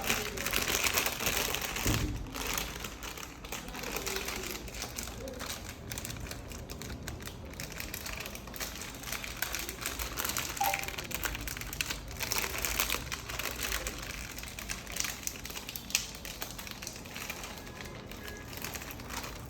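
Plastic packaging crinkling and rustling as it is handled and torn open, with many small clicks and taps.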